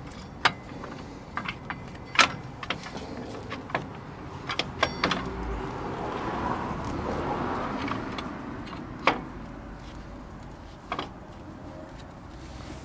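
Metal clinks and knocks of new S-cam air-brake shoes, springs and rollers being handled and worked into place on a drum brake, with sharp knocks about two seconds in and near nine seconds, and a stretch of rubbing and scraping in the middle.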